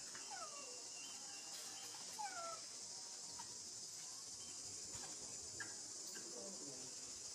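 Baby macaque giving three faint, short falling squeaks spaced a couple of seconds apart, over a steady high hiss.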